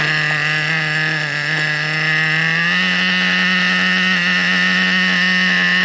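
Nitro-powered RC car engine running steadily at a high buzzing pitch, which steps up slightly about halfway through.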